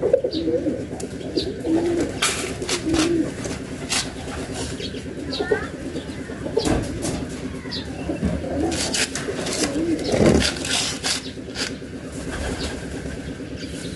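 Doves cooing repeatedly, with sharp metal clicks and clinks from a wrench and the small steel parts of a Kubota ER50 diesel's fuel injection pump being worked loose by hand.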